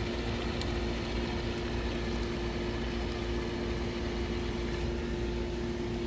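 Amphibious RC toy car's small electric motors running steadily as it drives through pool water, a constant whir with two steady hum tones.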